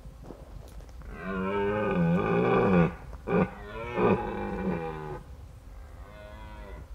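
Red deer stag roaring in the rut: one long, deep roar starting about a second in, broken by two short grunts, then a fainter roar near the end. It is an angry stag's dominance display toward other males.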